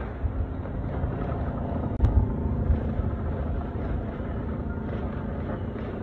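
Fireworks booming in a continuous low rumble, with a sharper bang about two seconds in.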